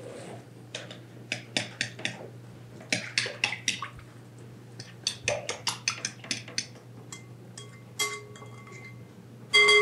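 A metal utensil clinking against a mixing bowl in quick runs of strokes, about five a second, as the dough ingredients are stirred together. One loud, ringing clink comes near the end.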